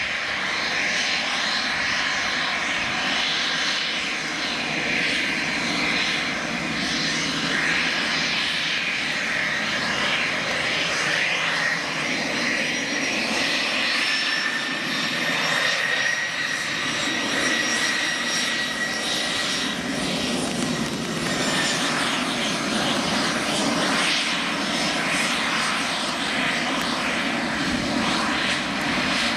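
Embraer Phenom business jet's twin rear-mounted turbofan engines running at taxi power, close by. A steady jet whine, with high tones that drift slowly in pitch.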